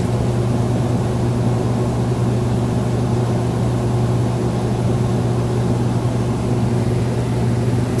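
Magic Chef compact top-load washing machine running, a steady motor hum with a strong low drone, its tub turning in the spin cycle.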